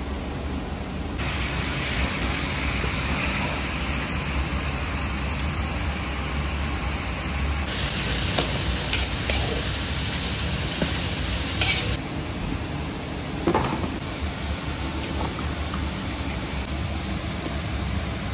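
Diced meat frying and sizzling in a kazan while a metal spatula stirs and scrapes it, over a steady low hum. The sizzle grows brighter and louder for a few seconds in the middle, and a sharp clank of metal on the pan comes soon after.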